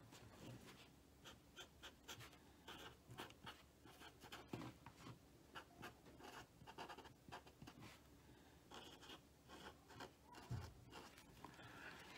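Felt-tip marker writing a label on blue masking tape wrapped around a wire, in many short, faint scratching strokes.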